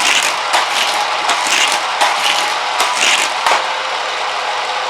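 Hot Wheels track boosters whirring steadily, with a brief louder swell several times in the first few seconds as a die-cast car is shot through and rattles along the plastic track.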